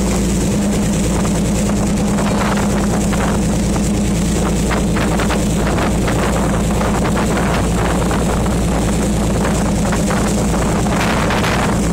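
Boat engine running steadily at speed, with rushing water and wind noise surging irregularly over it.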